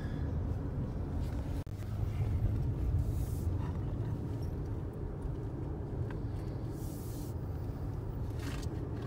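Steady low road and engine rumble of a car driving at highway speed, heard from inside the cabin. Twice a brief hiss rises over it.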